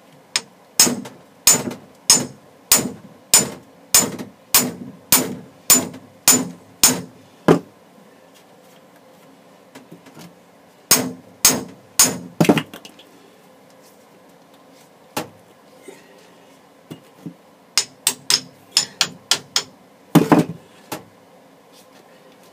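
Hammer blows swaging the end of a 3/4-inch copper line, widening it so another pipe can slide in. A steady run of sharp metal strikes, about two a second, is followed after a pause by a quick flurry, then a few lighter taps and one last hard blow near the end.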